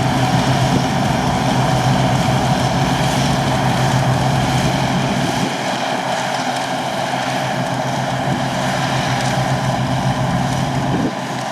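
Heavy diesel farm machinery running steadily: a constant engine hum under a broad mechanical roar. The low end drops slightly about five seconds in and again near the end.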